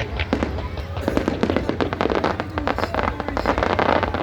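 Aerial fireworks going off in a rapid, dense run of crackling bangs, over music.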